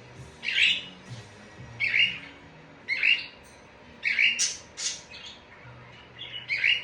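Pet parrot giving short squawks, roughly one a second, some in quick pairs.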